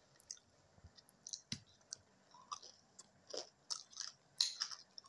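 A person chewing a crisp fried fritter (bora): faint, irregular crunches, about a dozen.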